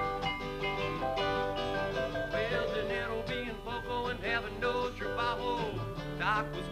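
Live band music: a mallet keyboard plays a run of ringing, sustained notes over acoustic guitar. About two and a half seconds in, a wavering, bending melodic line joins in.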